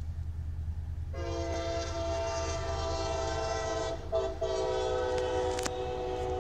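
CSX freight locomotive's multi-chime air horn sounding over a low steady rumble. The horn starts about a second in as a long blast, breaks off briefly about four seconds in, then sounds again.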